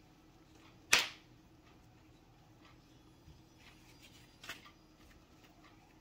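A faint steady hum with one sharp, loud clack about a second in, then two softer ticks later on.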